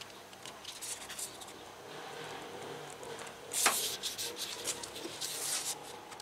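Rubber weatherstrip seal being slid down into its channel on a car's door frame: a soft rubbing and scraping with small clicks, and one sharper scrape about three and a half seconds in.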